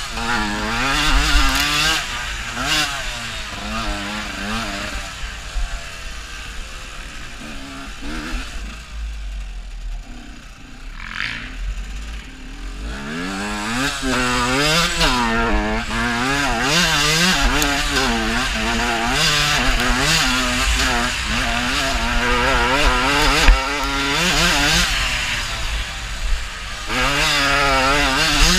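Dirt bike engine revving hard up and down with the throttle as the bike is ridden fast over a dirt track, close to the microphone with wind noise. For a few seconds near the middle it eases off and runs quieter, then accelerates hard again.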